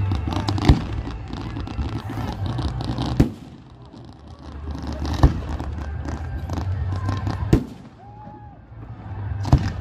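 Fireworks display: five sharp bangs of aerial shells bursting about two seconds apart, with dense crackling between them.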